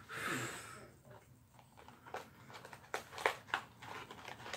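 Faint handling of a small toy in its plastic packaging: a short crinkle of plastic at the start, then scattered light clicks and taps.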